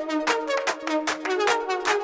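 Background music with a steady beat, about four strikes a second, under a repeating melody.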